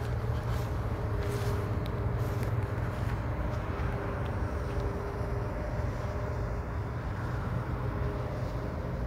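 Steady low outdoor background rumble with a faint steady hum. No bang or whistle is heard.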